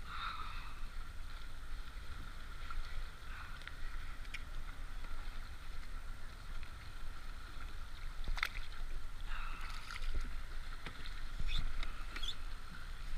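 Wind rumbling on the microphone and water moving around a fishing kayak's hull, with a few sharp clicks and knocks, the clearest about eight seconds in.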